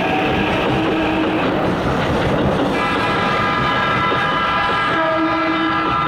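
Keikyu 1500-series electric commuter trains running through a level crossing, one passing close by as another approaches on the other track: a loud steady rumble of wheels on rails. Steady tones ring over it from about halfway through, which fits the crossing's warning alarm.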